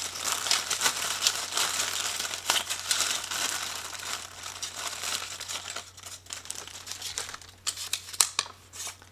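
Clear plastic zip-top bag crinkling as a hand shakes it and rummages among the folded paper slips inside. Near the end come a few sharper, sparser paper crackles as one slip is drawn out and unfolded.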